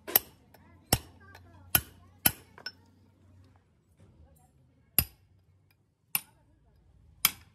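Hammer blows on a steel punch, riveting new friction lining onto a truck brake shoe. The sharp metal strikes each ring briefly: four in quick succession with a lighter tap after them, a pause of about two seconds, then three more blows about a second apart.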